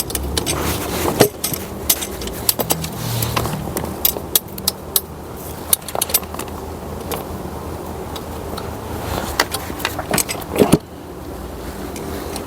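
Irregular metallic clicks and clinks of bolts and hand tools as manifold bolts are started and fitted, with a quick run of louder knocks near the end, over a low background hum.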